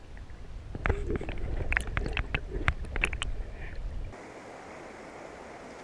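Wind buffeting the microphone with scattered clicks and knocks of handling. About four seconds in it cuts off abruptly to a steady rushing hiss of river water.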